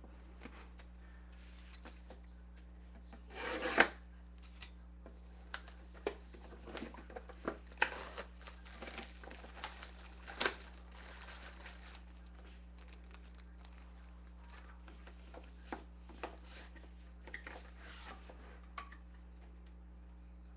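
Plastic wrap being torn off a sealed trading-card box and crinkled, with a loud rip about three and a half seconds in. After that come scattered crinkles, rubs and light clicks as the box is handled and opened.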